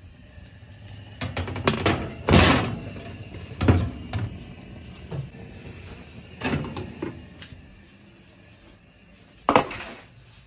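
A metal baking tray scraping and clanking against an oven rack as it is slid in and out, with the oven door being handled. There are several knocks and short scrapes: the longest and loudest about two and a half seconds in, and a last sharp clank near the end.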